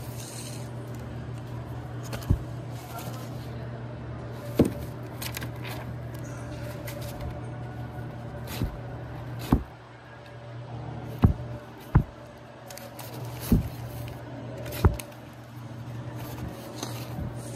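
Cardboard LP record jackets knocking against each other as they are flipped through one by one in a record bin: about nine sharp knocks spaced a second or two apart, over a steady low hum.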